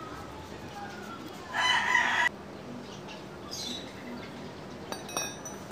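A rooster crows once, briefly, about one and a half seconds in. A few sharp clicks follow near the end.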